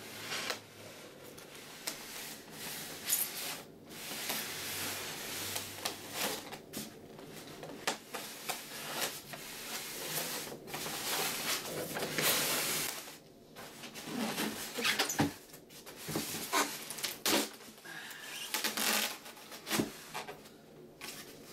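Styrofoam shipping box being worked open: irregular rubbing and scraping of foam against foam as the tight-fitting lid is pried loose and pulled off near the end, with scattered sharp knocks.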